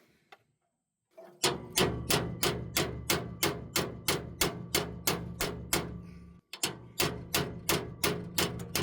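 Even, rhythmic knocking, about three strikes a second over a steady low hum. It starts after about a second of near silence and breaks off briefly near the end.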